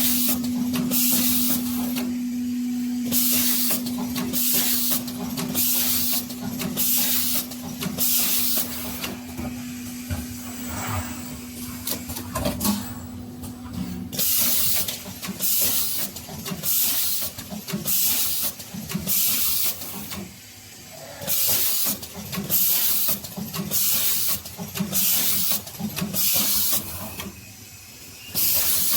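Automatic PCB wire-insertion machine running through its cycle, with short hissing bursts about once a second. A steady hum runs under the first half and stops about halfway through, and the machine goes briefly quiet twice in the second half.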